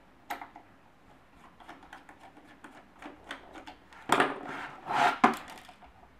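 Light clicks of a screwdriver working the bottom screws of a Sony NSZ-GS7 Android TV player, then two louder rubbing scrapes about four and five seconds in as the black plastic unit is slid and turned over on a wooden table.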